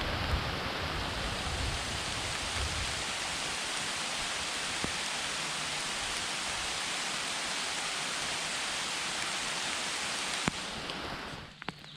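Heavy thunderstorm rain pouring down, a dense steady hiss. Near the end it cuts off abruptly to much quieter outdoor sound.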